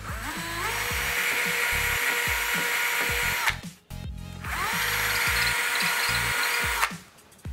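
Cordless drill with a masonry bit boring holes into the top of a window recess, in two runs of about three seconds each. Each run whines up to speed, holds steady, then stops suddenly.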